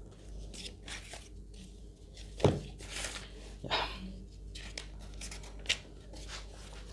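Faint scattered scratches and clicks, with one louder thump about two and a half seconds in and a few short noises after it.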